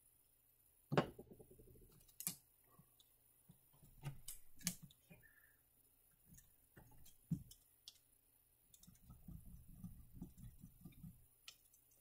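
Faint scattered clicks and taps of oil-painting tools on the palette and canvas, with a stretch of soft scuffing near the end as paint is mixed and laid on.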